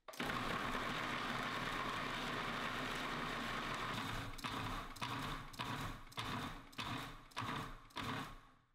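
Food processor motor and blade chopping medjool dates into ground almonds and pecans: it runs steadily for about four seconds, then is pulsed in a series of about seven short bursts, roughly two a second.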